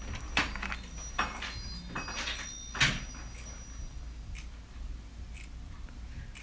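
Quiet room with a steady low hum and a few scattered soft knocks and clicks, the sharpest about three seconds in.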